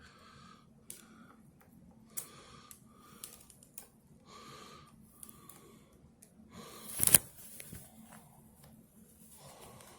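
Small clicks and rustles of hands working a laptop lid with a screwdriver while screwing the screen to its hinges, with one louder clatter about seven seconds in, over a faint steady hum.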